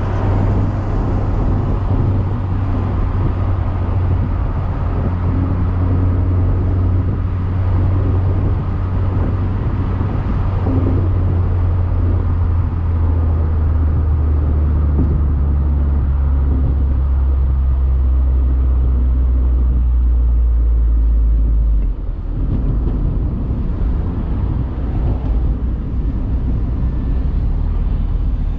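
Mazda Miata's 1.8-litre four-cylinder engine and road noise droning inside the cabin while driving at a steady speed with the soft top up. The low drone grows heavier toward the middle and then drops off suddenly about three-quarters of the way through, as when the throttle is eased.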